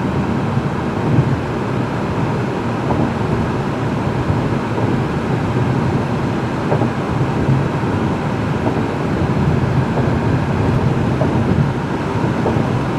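Steady road and tyre noise of a car at highway speed, heard from inside the cabin, with a faint tick about every two seconds.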